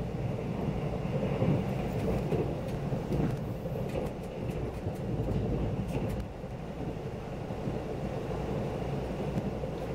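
Cabin noise of a KTX train running at speed: a steady low rumble of wheels on rail, heard through the car body.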